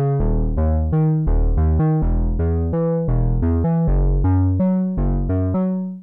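Behringer Pro-800 analog synthesizer playing a Prophet-style bass patch: a quick bass line of short plucked notes, about three a second, each bright at the attack and closing down fast, with no reverb. The line stops just before the end.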